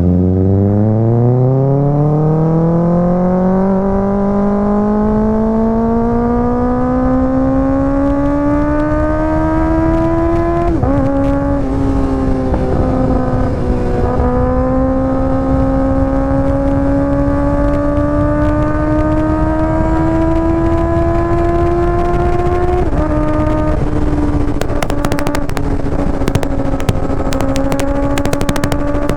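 Kawasaki ZX-6R's 636 cc inline-four through an IXIL aftermarket exhaust, pulling away and accelerating. The engine note rises steadily, drops at an upshift about ten seconds in, climbs slowly again, then drops at a second upshift a little over twenty seconds in and holds steady. A scatter of sharp crackles comes near the end.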